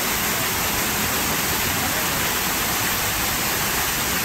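Steady rush of a pump-fed artificial waterfall, water falling in several streams over rock faces into a shallow pool.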